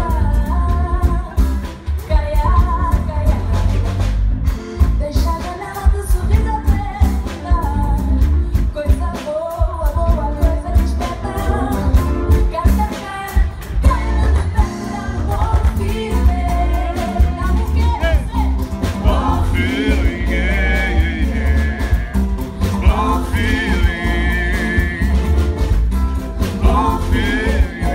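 Live acoustic concert music: a female singer sings a Portuguese song over guitar and a heavy bass. In the second half she holds long, wavering notes.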